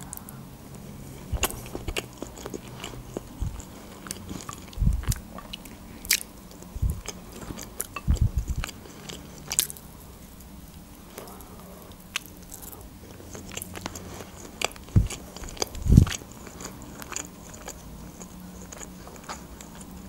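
Close-miked eating: biting and chewing hard-boiled egg and grilled chicken breast, with many scattered wet mouth clicks and a few louder low knocks.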